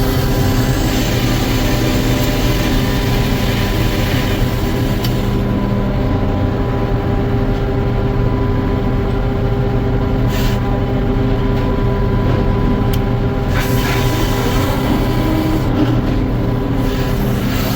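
A sawmill running steadily: its power unit drones with a low hum and several steady tones. For about the first five seconds a brighter hiss rides on top, then drops away. A few sharp clicks or knocks sound in the second half.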